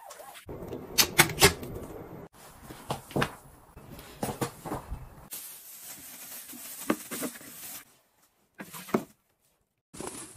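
Clicks, knocks and rubbing of household objects being handled, in several short takes that start and stop abruptly, with a brief stretch of near silence near the end.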